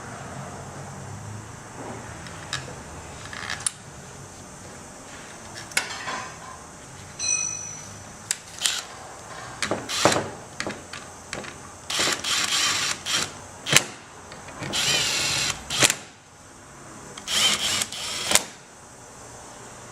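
A handheld power tool run in short bursts of about a second each, several times, with sharp metallic clicks and clinks of tools and parts between bursts.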